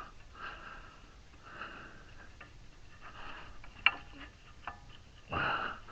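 Quiet handling of disc brake pads and their spreader clips, with one sharp metallic click about four seconds in and a short breathy noise near the end.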